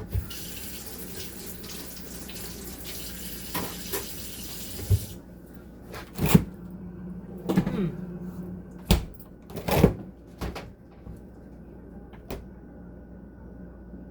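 Kitchen sink tap running for about five seconds and then shut off, followed by a run of sharp knocks and clatters from handling things at the counter.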